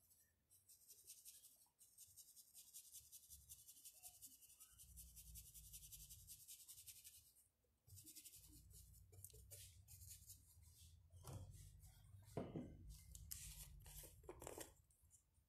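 Faint, scratchy rubbing of a paintbrush working paint onto a rough, bare wooden board in quick repeated strokes, pausing briefly about halfway. A few soft knocks come near the end.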